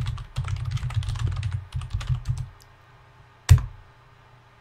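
Typing on a computer keyboard: a quick run of keystrokes for about two and a half seconds, then a pause and one single louder key press about three and a half seconds in.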